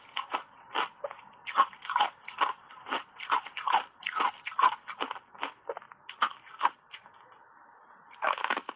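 Hard ice chips coated in matcha powder being bitten and crunched between the teeth, a quick run of sharp crunches about three a second. The crunching stops for about a second near the end, then a bite brings a loud cluster of crunches.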